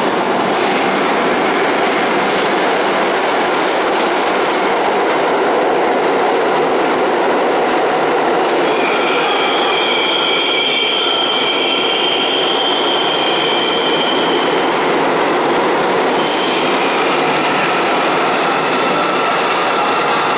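R62A subway train pulling into an underground station, with a steady loud rumble of wheels on rail. A high-pitched squeal of the wheels sets in about nine seconds in and carries on to the end.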